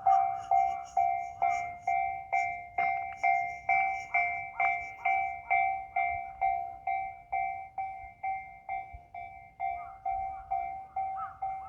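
Japanese railway level-crossing warning bell ringing, a steady ding a little over twice a second, each strike dying away quickly, fading a little near the end.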